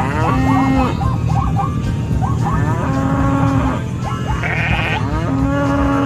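Bleating sound effect: three long, wavering bleats about two and a half seconds apart, over a steady low rumble.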